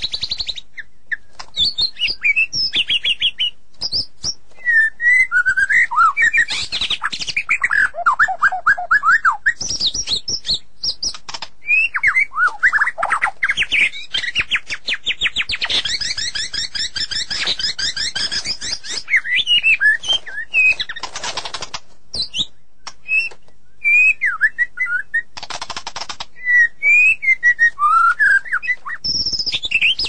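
White-rumped shama (murai batu) singing a long, varied song of whistled phrases, sliding notes and fast trills, with a long rapid trill in the middle. Sharp clicks run through it, and two short harsh, raspy bursts come near the end.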